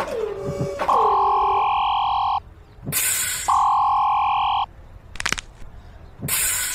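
Electronic sound effects: two falling whistle-like glides at the start, then two long steady beeps of about a second and a half each, with a burst of hiss between them and another burst of hiss near the end.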